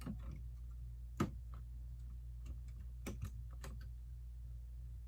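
Lego plastic pieces clicking and tapping as a section is pressed down onto the studs: a few scattered light clicks, the sharpest about a second in, and a quick cluster of them around three seconds in.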